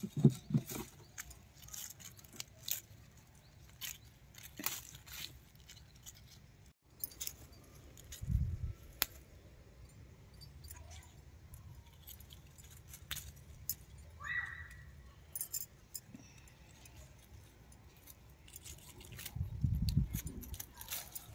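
Scattered rustles and light clicks of bitter gourd vines and dry leaves being handled, with a few dull low thumps and one brief higher squeak about 14 seconds in.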